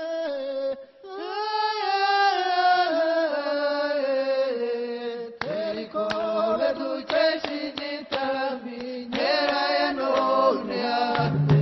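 Chant-like singing voices, unaccompanied at first and starting about a second in; about halfway through, sharp rhythmic percussive clicks join the singing.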